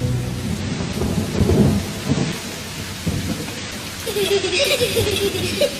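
Rain falling steadily with low rumbles of thunder. A wavering pitched tone comes in about four seconds in.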